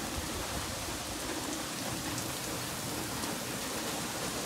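Heavy rain pouring steadily onto pavement and parked cars: an even, unbroken hiss, with a few faint sharper ticks of drops landing close by.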